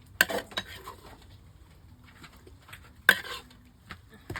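Cooking utensils clinking and knocking against pots and dishes a few times, with the loudest knock about three seconds in.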